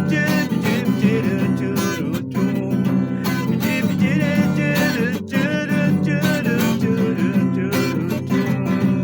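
Acoustic guitar strummed steadily, an instrumental passage between the sung verses of a home-made song.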